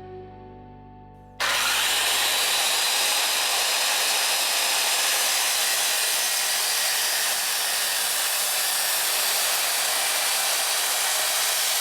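Circular saw running steadily as it cuts wood, an even hiss-like noise that starts abruptly about a second and a half in, after the last notes of a music chord fade.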